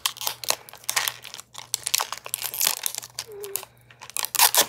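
Thin plastic wrapping crinkling and crackling in quick, irregular bursts as it is peeled off a plastic capsule ball by hand.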